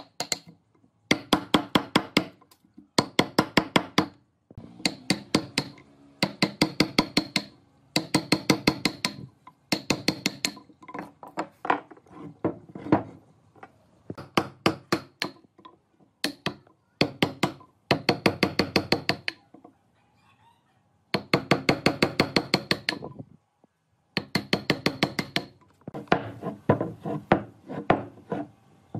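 Wood chisel being struck with a mallet to chop out a joint in a hardwood block: rapid bursts of sharp blows, many a second, with short pauses between bursts.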